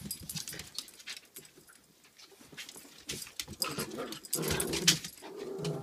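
Two small dogs, a pomapoo and a pomeranian, play-fighting: scuffling and claws clicking on a hardwood floor, with low growling starting about four seconds in and growing louder.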